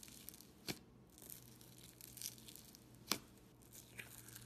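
Crunchy bead-filled slime crackling as a finger presses and pokes into it in a plastic jar, with a few sharp pops, the loudest about three seconds in.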